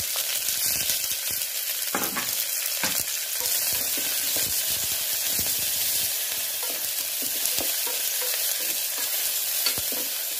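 Freshly added sliced onions sizzling in hot mustard oil in an aluminium pressure cooker, with a steady hiss of frying. A wooden spatula stirs them, scraping and knocking against the pan bottom at irregular moments.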